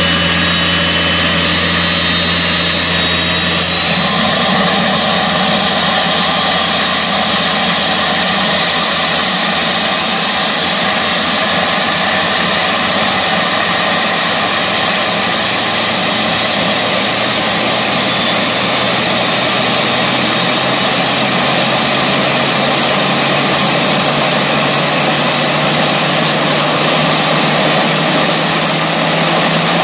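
Honeywell TPE331 turboprop engine spooling up during start: a loud steady rush of turbine and propeller noise with a high whine that climbs steadily in pitch throughout. The low hum changes about four seconds in.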